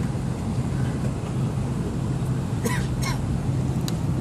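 Airliner cabin noise: a steady low hum, with a couple of brief faint voice sounds about two-thirds of the way through.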